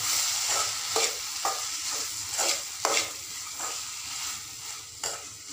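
Metal spatula scraping and stirring grated coconut through onion-tomato masala in a metal kadai, in irregular strokes about once a second, over a steady sizzle of frying. The sizzle dies down toward the end, as the masala is lightly sautéed with the coconut before grinding.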